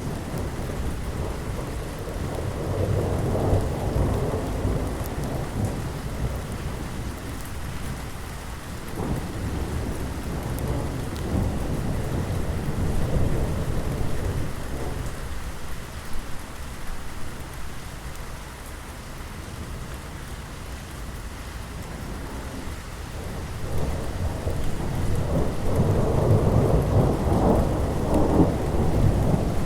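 Thunderstorm: steady rain with rolling thunder rumbling in long swells, heaviest near the start, around the middle and again near the end.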